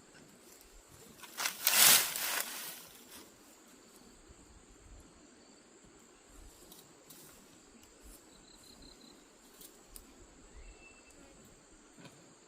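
A brief loud rustling swish of weeds being cleared, about a second and a half in, then a quiet outdoor background with a few faint high chirps.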